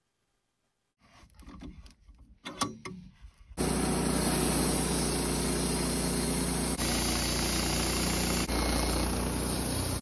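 Wood-Mizer LT15 portable sawmill running at a steady speed, a loud even engine drone that starts abruptly about three and a half seconds in, after a few faint irregular knocks.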